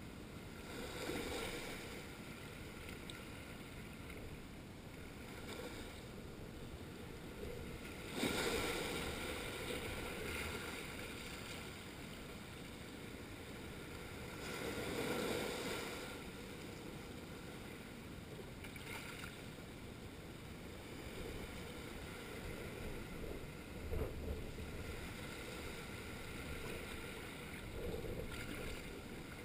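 Small waves washing in over a rocky shoreline. The surf hiss swells and fades every few seconds, with a sudden splash about eight seconds in and a sharp slap of water a little before the end.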